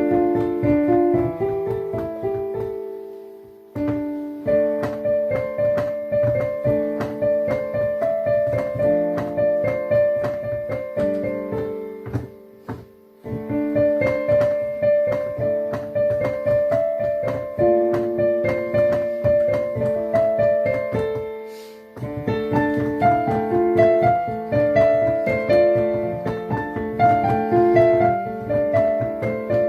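Piano being played: a melody over chords, phrase after phrase, with three short breaks, the first about four seconds in, then around thirteen and twenty-two seconds.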